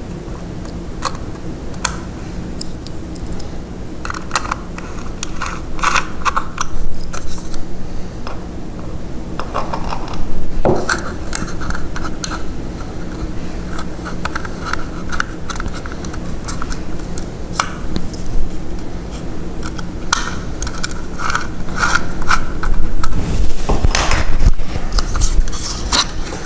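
Small screws being turned into a metal 2.5-inch drive caddy with a small screwdriver: scattered metallic clicks and scrapes with bouts of squeaky rubbing, and louder clattering as the caddy is picked up and handled near the end.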